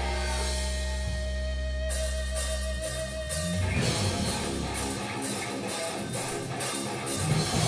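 Live rock band: a held, droning guitar chord over low steady amplifier hum, with drum-kit cymbals starting about two seconds in, then the full band with electric guitars, bass and drums coming in together about three and a half seconds in.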